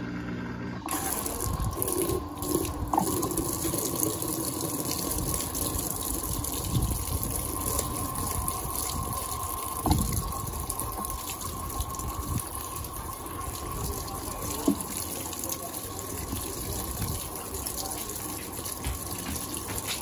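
Electrolux Turbo Acqua Jet top-loading washing machine filling for the rinse. Water rushes steadily through the fill jet and sprays into the tub onto the load, starting abruptly about a second in.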